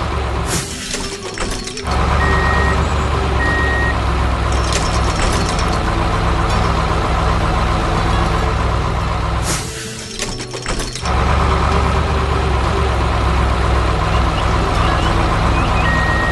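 Heavy construction-machine engine sound effect running steadily, twice cut by a short hiss about a second in and about ten seconds in. Short high reversing beeps sound a few times, around two to four seconds in and again near the end.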